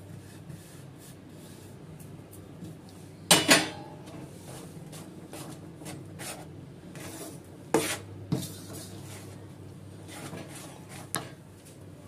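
Metal spoon stirring and scraping a grainy chana dal and sugar-syrup mixture in a metal kadhai, with sharp clanks of the spoon against the pan: a double clank about three seconds in, two more around eight seconds, and one near the end.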